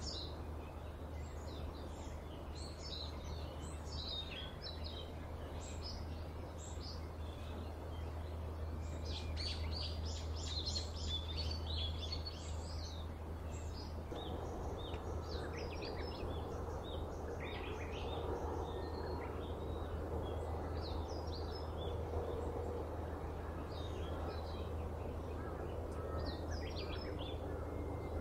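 Small birds chirping in many short, high calls over a steady low hum of background noise. A faint steady drone joins about halfway through.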